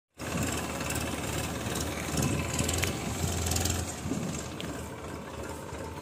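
Tractor-mounted mini combine harvester running while cutting mustard: the tractor's diesel engine hums steadily under the clatter of the header and threshing gear, easing a little about four seconds in.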